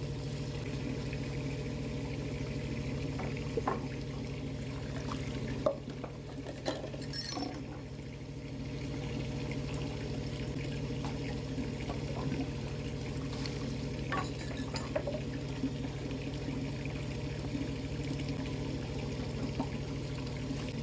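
Water running steadily, with occasional light clinks and knocks of dishes.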